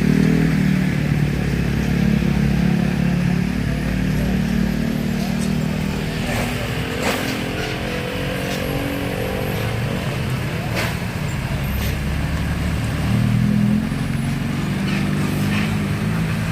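Road traffic with motor vehicle engines running in a steady low hum, and a couple of sharp clicks about seven and eleven seconds in.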